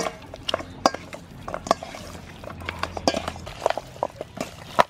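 Raw pork ribs being mixed by hand with salt in a stainless steel bowl: irregular clacks and knocks of bone and meat against the metal.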